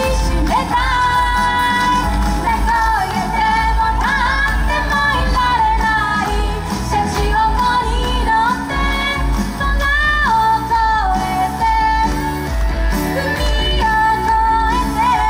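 A female singer's voice carrying a pop song's melody over instrumental backing with a steady bass beat.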